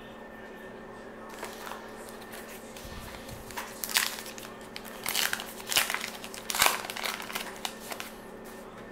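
A sealed trading-card pack's crimped wrapper being torn open and crinkled by hand: a run of sharp crinkling rustles starting about three and a half seconds in, after a quiet start.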